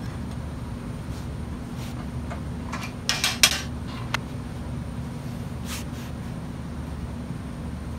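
Sharp metal clanks from a steel flange plate and clamps being fitted against the end of a square steel tube: a short cluster about three seconds in, then a single click a moment later, over a steady low hum.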